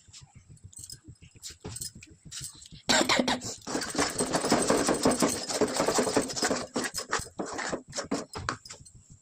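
Cooking sounds from a pan of wheat-flour halwa: rapid spatula scraping and stirring, then about three seconds in a sudden loud sizzling hiss that eases off over a few seconds.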